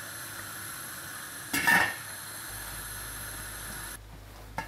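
Octopus and potatoes boiling in a stainless steel pot on a gas hob: a steady bubbling hiss. About a second and a half in there is one short, louder metallic clank.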